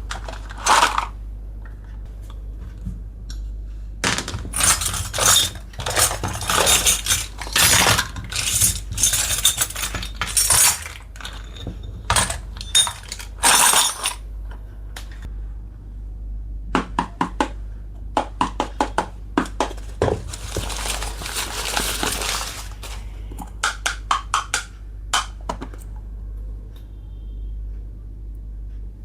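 Miniature toy kitchen pieces from a Hello Kitty set clinking, tapping and clattering against each other as they are unboxed and handled, in quick irregular clusters. A stretch of rustling comes about two-thirds of the way through.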